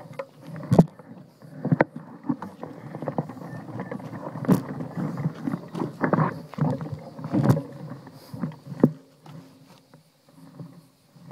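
Mountain bike rolling over a dry dirt trail: tyre noise with irregular knocks and rattles as it goes over bumps, easing off near the end.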